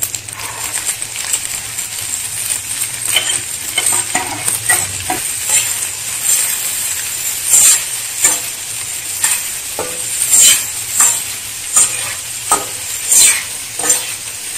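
Diced vegetables, sausage and dried shrimp sizzling in oil in a wok while a metal slotted spatula stirs them, scraping across the pan. The stirring strokes fall into a regular rhythm, about one and a half a second, in the second half.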